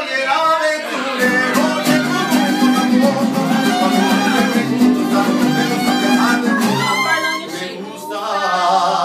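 Live mariachi band playing: violins carrying the melody over strummed guitar and a low bass line. The music dips briefly near the end before picking up again.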